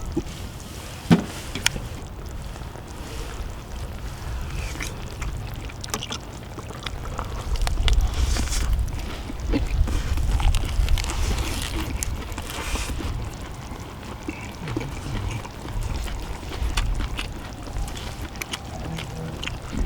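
People eating cheese dak-galbi: chewing and slurping, with sharp clicks of chopsticks and spoons against the pan, over a steady low rumble.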